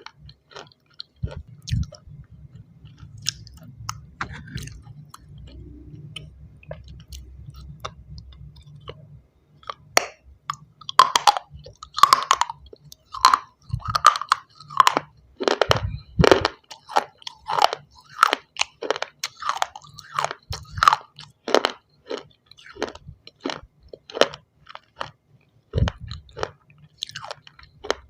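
Close-up biting and chewing of hard, crunchy shale stone pieces. The first nine seconds are sparse soft clicks over a low hum, then loud sharp crunches come thick and fast, about two a second.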